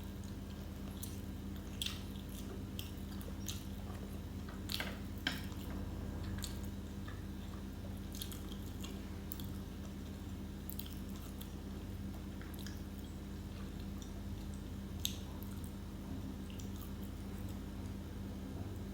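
A person biting and chewing crisp potato pancake, with scattered crunchy clicks, over a steady low hum.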